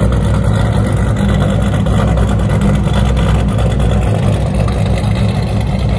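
Straight-piped 5.7 HEMI V8 of a Dodge Magnum RT with a Comp HRT stage 3 cam and long-tube headers idling warm, with a steady, choppy cam lope through the exhaust.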